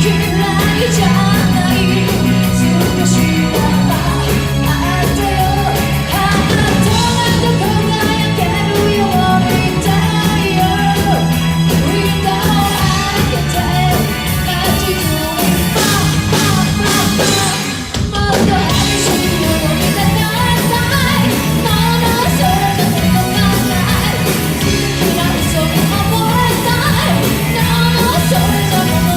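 Live rock band playing with a singer, loud and full throughout, with a short break about two-thirds of the way through before the band comes back in.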